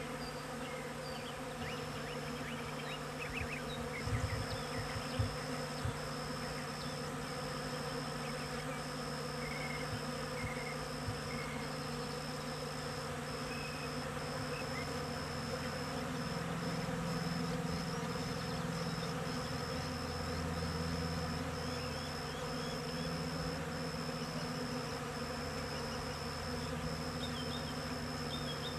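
Honey bees buzzing as they forage on corn tassels: a steady low hum, with a louder, wavering buzz past the middle as a bee flies close.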